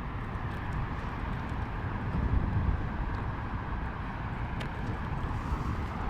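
Steady low rumble and hiss outdoors: a rider on a Onewheel electric board rolling along, with wind on the microphone. A few faint ticks, and a slightly louder swell of rumble a little over two seconds in.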